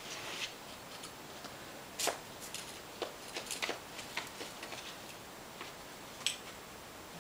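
Scattered clicks, clinks and short scrapes of climbing gear and rope during a crack climb, faint over a steady hiss, the sharpest about two seconds in and again near the end.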